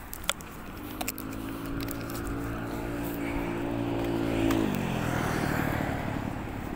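A motor vehicle passing by. Its engine note holds steady for about four seconds, then drops in pitch as it goes past and fades.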